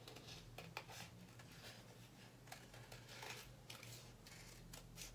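Scissors snipping through thin printed cardboard, a faint series of short, irregular cuts.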